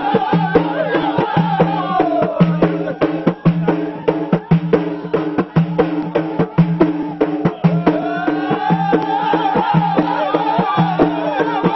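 Ahidous, Amazigh folk music: a group of men chanting together in long, held, wavering lines, over a steady run of sharp percussion strikes.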